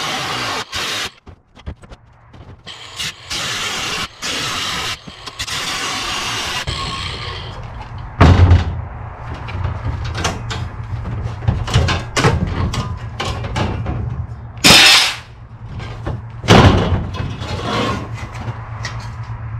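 A cordless angle grinder with a cut-off wheel cuts aluminum sheet in short runs for the first several seconds. Then the loose aluminum sheet clanks and rattles with several sharp knocks as the rough-cut piece is worked free and handled.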